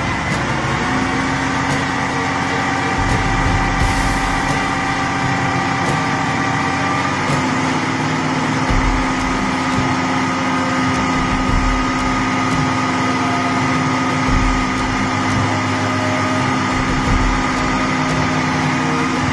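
Heavy diesel dump truck engine running steadily at low revs as the loaded truck crawls along, with a whine over the drone; the pitch steps up slightly about seven seconds in.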